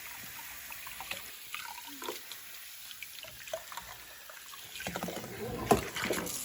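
Water trickling and running over a small dog during its bath, with scattered short pitched squeaks and splashes, growing busier about five seconds in, with one sharp knock.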